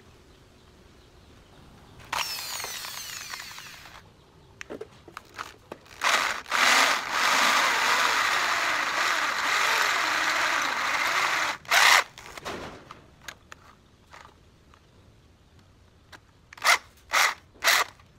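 Corded electric drill boring into the metal steering head of a Yamaha XTZ motorcycle frame to make a hole for a grease nipple. It runs steadily for about six seconds, stops with a sharp burst, then gives three short trigger pulses near the end.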